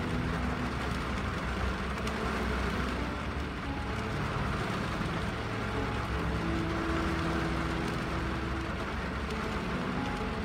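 Steady rain on a car windshield, with a soft melody of long held notes over it.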